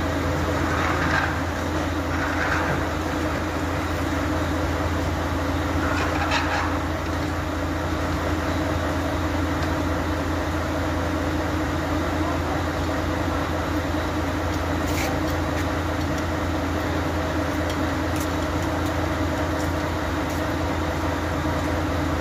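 A steady low mechanical drone, engine-like, running unchanged throughout, with a few faint clinks and a short click from work under the truck.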